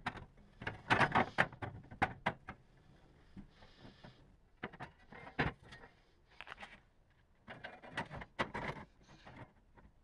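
Irregular knocks, clicks and short scrapes of thin galvanised steel repair panels being handled and set in place against a car's rusty steel boot floor.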